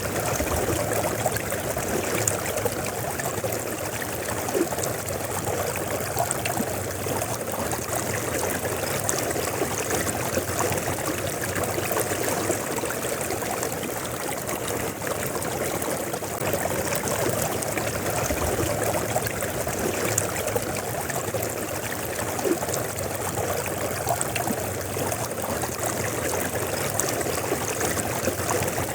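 River water flowing steadily over rocks, a constant rushing and trickling with no breaks.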